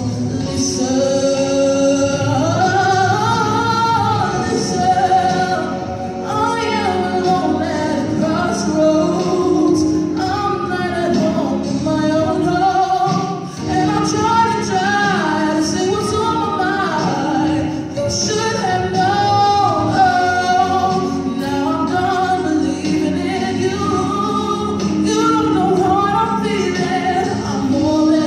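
A girl singing a slow ballad solo into a microphone over an instrumental backing track, her melody rising and holding long notes.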